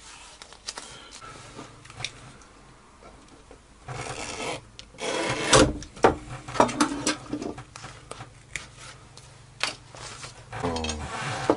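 Duct tape being rubbed and pressed flat against a particleboard with a square, then a strip of tape being handled and crinkled, with a few light knocks on the board. The rubbing and knocking start about four seconds in.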